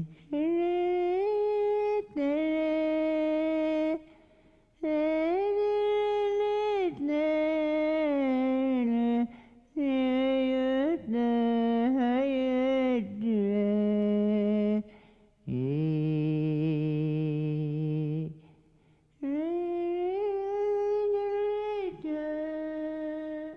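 A solo voice humming a slow wordless melody in long held notes that slide from one pitch to the next, about ten phrases with short breaths between them.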